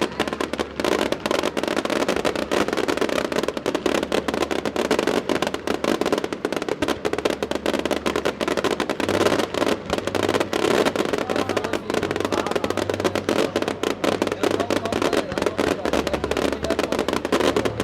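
Fireworks going off in a dense, continuous crackle of rapid pops, with low sustained musical notes underneath.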